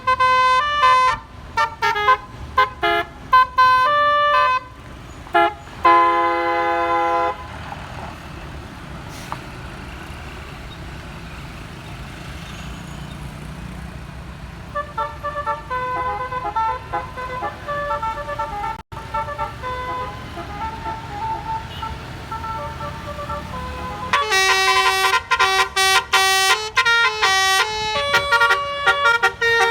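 Telolet basuri musical bus horns playing quick tunes of short, high pitched notes, ending in a long held chord. Engine and road noise fill a stretch in the middle, then a fainter tune plays and a loud, fast tune returns near the end.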